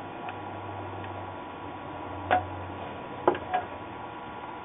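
A few light, sharp clicks of small hard parts and tools being handled on a workbench, three of them between about two and three and a half seconds in, over a steady low hum.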